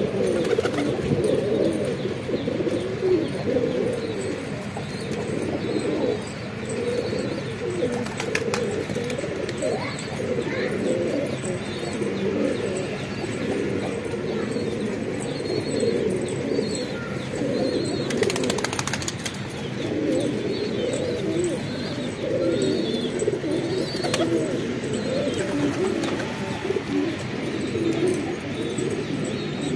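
A flock of domestic pigeons cooing continuously, many birds overlapping one another into a steady low burble.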